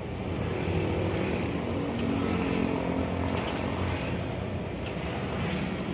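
Steady low engine rumble and road noise heard from inside a vehicle in slow traffic, with the engine note shifting slightly in pitch about halfway through.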